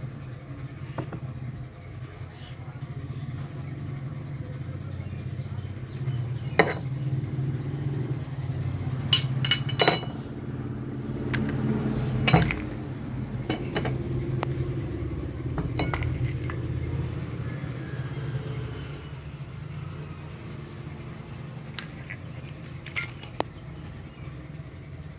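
Scattered metal clinks and knocks over a steady low rumble. A quick cluster of sharp clinks comes about ten seconds in and a loud knock about twelve seconds in.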